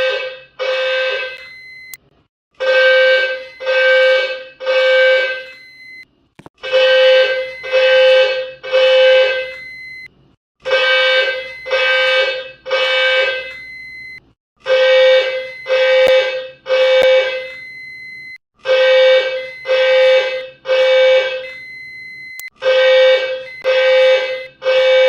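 Fire alarm sounding the temporal-three evacuation signal: three horn blasts of just under a second each, then a short pause, repeating about every four seconds.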